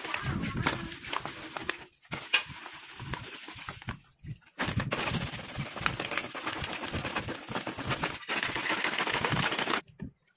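Sandpaper rubbed fast back and forth by hand along a wooden slingshot handle: rapid rasping strokes, with brief pauses about two and four seconds in and again about eight seconds in, stopping just before the end.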